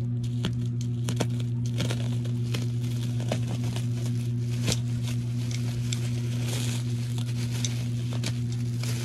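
Clear plastic stretch wrap crinkling and tearing as it is cut open with a box cutter: a continuous run of sharp crackles and clicks. Under it runs a steady low hum.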